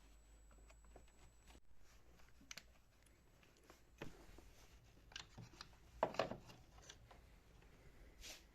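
Faint, scattered clicks and knocks, the loudest a short clatter about six seconds in.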